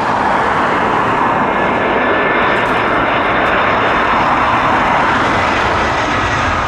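Jet airliner's engines as the aircraft passes: a steady rushing noise with a faint high whine, swelling slightly in the middle and easing off near the end.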